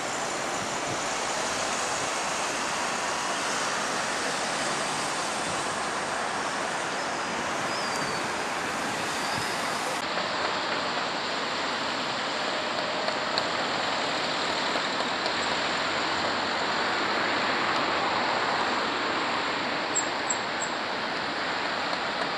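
A steady rushing outdoor noise with no distinct events.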